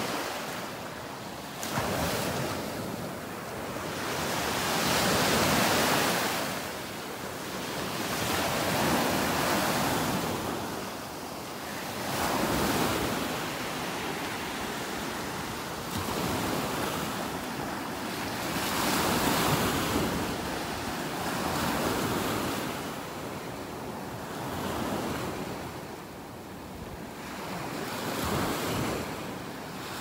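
Surf breaking and washing up the beach, the noise swelling and fading every three to four seconds, with wind buffeting the microphone.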